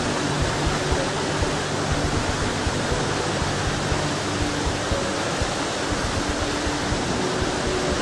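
Nachi Falls, a 133 m single-drop waterfall, pouring steadily: an even, loud rush of falling water, with soft music faintly underneath.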